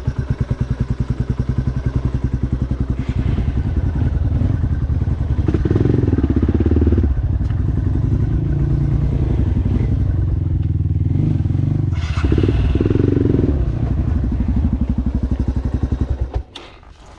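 Dirt bike engine running with a rapid pulsing beat, revved up twice, then stopping abruptly near the end.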